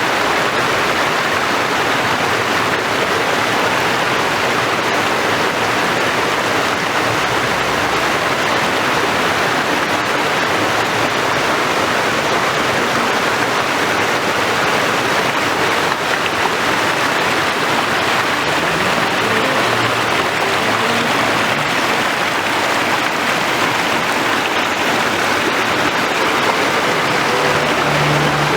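Waterfall: water falling and rushing steadily, a dense even hiss with no let-up.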